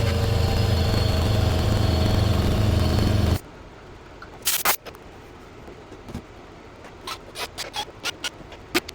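A motor-driven shop machine runs steadily with a low hum, then stops abruptly about three and a half seconds in. Scattered light clicks and knocks follow.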